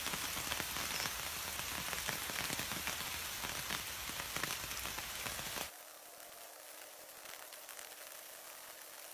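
Dense crackling hiss, full of small clicks, that cuts off abruptly about six seconds in, leaving a much quieter hiss with a faint low hum.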